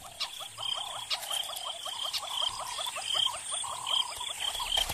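A chorus of frogs calling: short rising croaks repeated several times a second, overlapped by higher pulsed calls.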